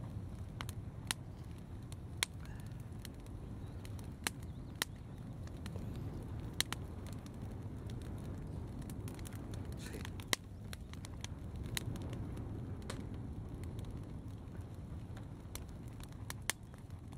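Fire crackling: scattered, irregular sharp pops over a low steady rumble.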